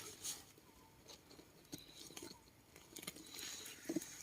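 Faint scraping and crackling of soil and leaf litter, with a few small scattered clicks, as the ground is dug and searched by hand for land snails.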